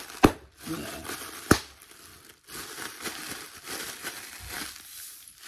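Inflated plastic air-cushion packing squeezed and crinkled in the hands, with two sharp pops a little over a second apart near the start as its air cells burst, then continuous crinkling of the plastic.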